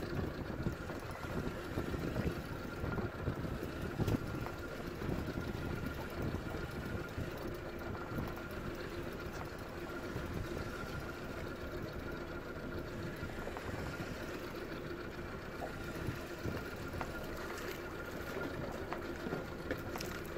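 Outboard motor running steadily at low trolling speed: an even hum with a constant whine over a low rumble.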